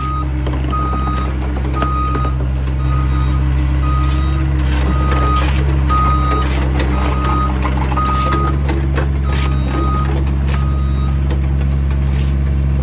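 Excavator's diesel engine running steadily while its travel alarm beeps about once a second, with scattered scrapes and knocks of dirt work.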